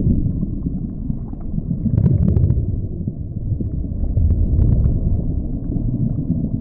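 Wind buffeting the microphone: a loud, uneven low rumble, with a few faint clicks about two seconds in and again about four and a half seconds in.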